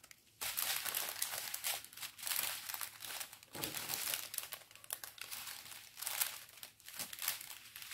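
Plastic packaging of a diamond painting kit crinkling and rustling as it is handled, starting about half a second in and going on and off.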